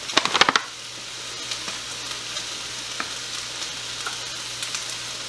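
Mixed vegetables sautéing in a hot pan, a steady sizzle. A few light clicks in the first half second.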